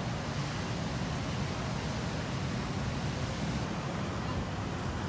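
Steady wash of sea surf mixed with wind noise.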